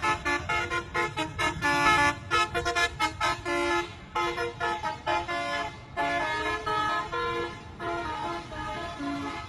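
A bus's telolet multi-tone horn plays a melody: a quick run of short notes, then slower, longer notes from about six seconds in. A low rumble runs underneath.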